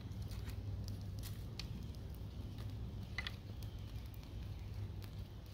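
Small campfire of sticks crackling with scattered sharp pops, one louder crackle about three seconds in, as sticks are laid onto it. A steady low rumble runs underneath.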